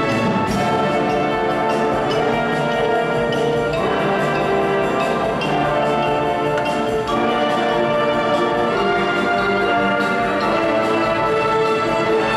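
Youth symphony orchestra playing a loud, sustained classical passage with brass prominent.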